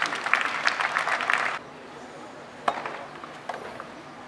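Crowd applause, many hands clapping, that cuts off suddenly about a second and a half in; a single sharp knock follows near the three-second mark.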